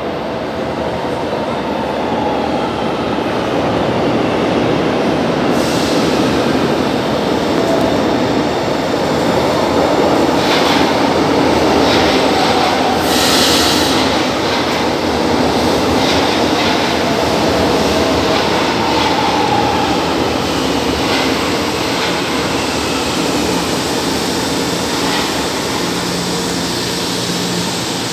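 São Paulo Metro train pulling into an underground station: a steady rumble of wheels on rail that swells over the first few seconds, with wheel squeal and a few brief hisses, until the train stands at the platform.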